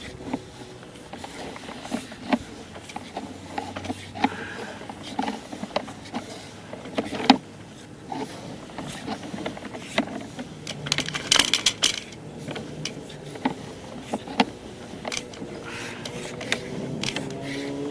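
Sewer inspection camera and its push cable being fed down the sewer line: irregular clicks and rattles. Near the end a steady hum begins that slowly rises in pitch.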